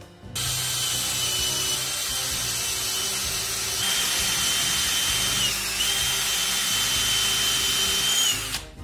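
Cordless drill driving a screw into a pocket-hole joint of a wooden frame. The motor whines at a steady pitch for about eight seconds, sags briefly a little past the middle as it takes load, then stops near the end.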